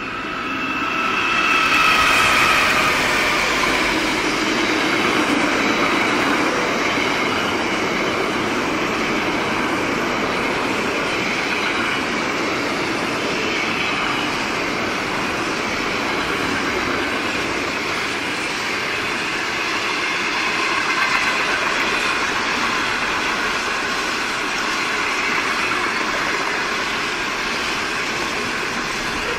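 A freight train passing, led by Pacific National NR- and AN-class diesel-electric locomotives. The locomotives go by in the first few seconds, loudest about two seconds in, with a pitched whine that falls slightly in pitch. After them the loaded freight wagons roll past with a steady wheel rumble and clatter.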